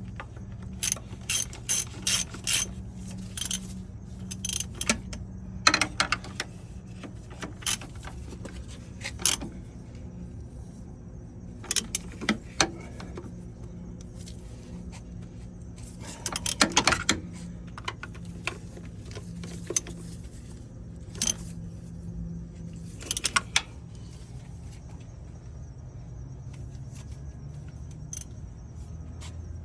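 Hand socket ratchet clicking in short runs with pauses between, as bolts are run in evenly and snugged down to seat the oil fill tube gasket.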